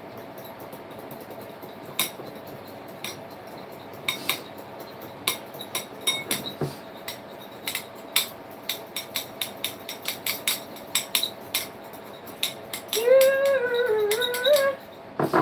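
Metal spoon clinking and tapping against a small ceramic bowl while a thick sauce is stirred: many sharp, irregular clinks. Near the end, a person hums a short, wavering tone for under two seconds.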